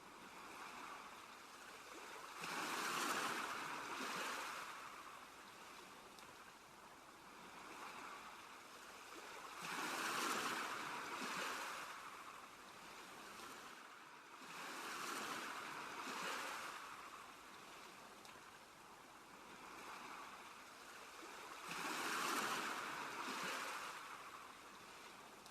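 Ocean surf washing onto a beach, a steady wash that swells and ebbs about four times, one wave every six or seven seconds.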